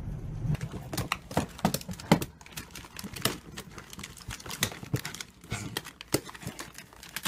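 A plastic bag liner and paper rolls crinkling and crackling in short, irregular bursts as dogs shift about inside a bin.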